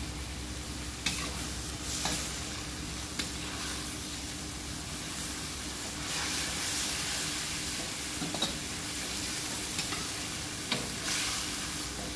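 Kangkung (water spinach) stir-frying in a wok: a steady sizzle, with the metal spatula scraping and clinking against the wok now and then.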